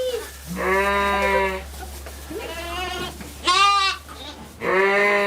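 Goat kids bleating: about four separate calls, one after another, some longer and lower, one shorter and higher. A steady low hum runs underneath.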